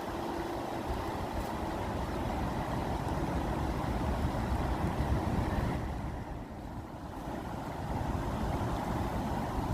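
Steady rushing water with a deep rumble underneath; the higher hiss softens briefly about six seconds in, then returns.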